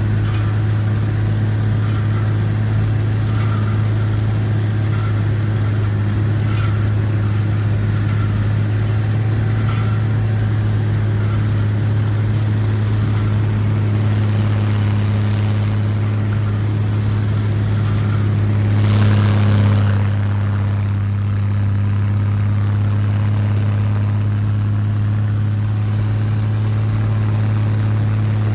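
Snow cat engine running steadily under way, a deep, even drone. A brief louder rush of noise comes about two-thirds of the way through.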